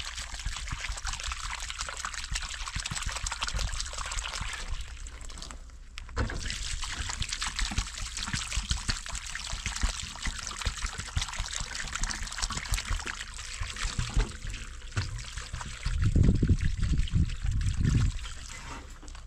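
Water trickling and pouring steadily, with a brief break about six seconds in. Near the end, about two seconds of louder low rumbling.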